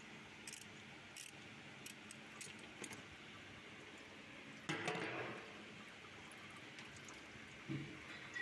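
Small metallic clicks and clinks as the oil filter is worked loose by hand, with a louder clatter about five seconds in and a short knock near the end.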